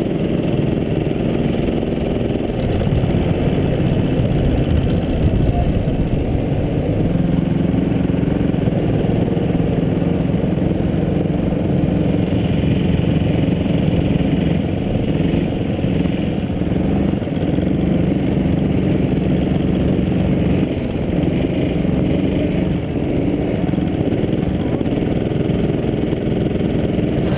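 Go-kart engine running steadily as the kart drives out of the pit lane and around the track, heard from on board the kart, with other karts running close by.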